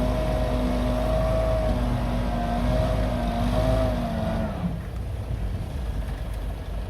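Heavy diesel earthmoving machine engine running steadily under power, then dropping back about two-thirds of the way through to a lower, rumbling idle.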